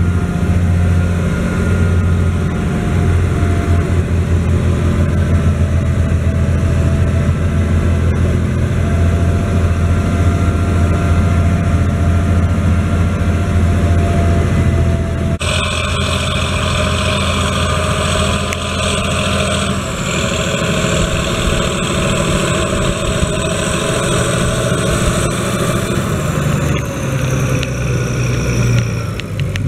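Schlüter Profi Trac 3500 TVL's 320 hp turbocharged, intercooled MAN diesel running steadily under load while pulling a disc harrow, heard from inside the cab. About halfway through, the sound changes abruptly to the tractor heard from outside, with a high steady whine that drops in pitch near the end.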